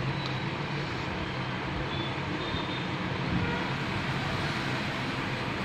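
Steady background noise with a low hum and no distinct event.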